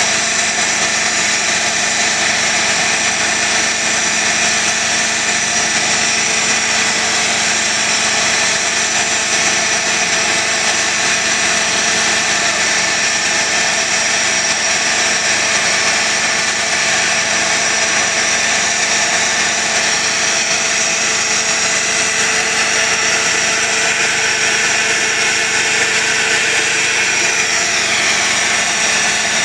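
Steady machine drone with a hiss over it, holding the same level throughout, from rail-welding equipment running.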